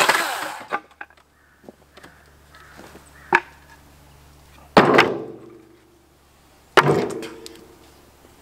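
Battery chainsaw running down at the end of a cut, fading out in the first second. Then three hard wooden knocks, the last two loud with a brief ringing after each, as cut pallet wood is handled.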